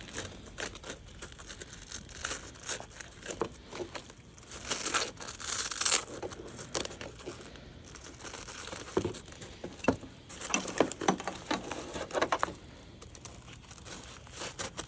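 Nylon chest rig being handled to work an attachment hook off: fabric rustling with rasping, tearing pulls of hook-and-loop Velcro and a few small clicks. The longest rasps come about five seconds in and again around eleven seconds in.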